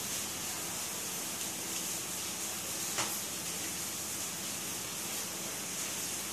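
A steady background hiss, with one short click about three seconds in.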